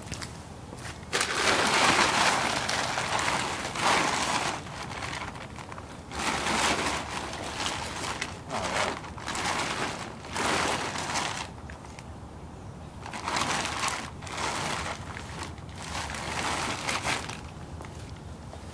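Plastic tarp rustling and crinkling as it is pulled back and handled, in several bursts of a few seconds each with short pauses between.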